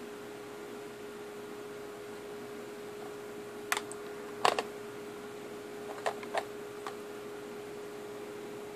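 A few sharp clicks and taps from a laptop's keys or touchpad, bunched around the middle as the page is scrolled, over a steady hum.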